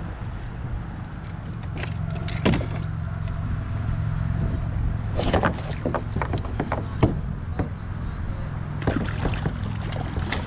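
Wind rumbling on the microphone over a kayak on the water, with irregular splashes and knocks from paddling and the hull.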